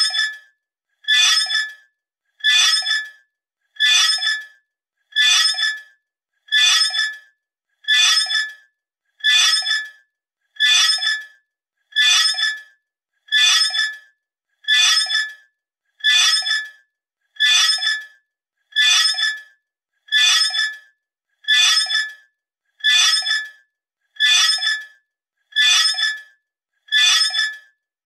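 A knife blade squeaking against glass: short, shrill squeaks on a steady high pitch, repeated about twenty times, a little over a second apart.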